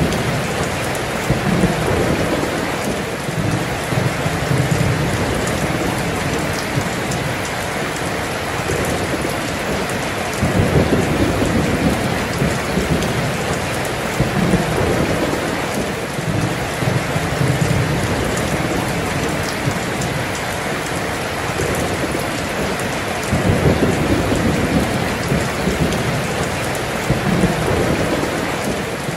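Heavy rain pouring down in a steady, dense hiss. Low rolling thunder rumbles under it several times: near the start, through the middle and again late on.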